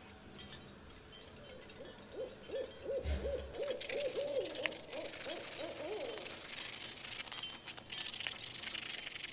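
Fine sandpaper rubbing back and forth over a small metal finger bike frame, a rasping hiss in strokes that is strongest in the second half. Over the first half there is a run of about a dozen short hooting notes, each rising and falling, about four a second.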